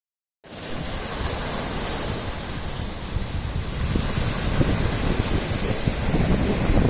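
Sea waves washing onto the shore, with wind buffeting the microphone in irregular low rumbles. The sound starts about half a second in and grows louder toward the end.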